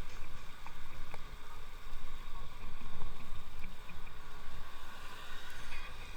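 Wind buffeting the microphone with road rumble from a moving electric bicycle, a steady rushing noise that rises and falls.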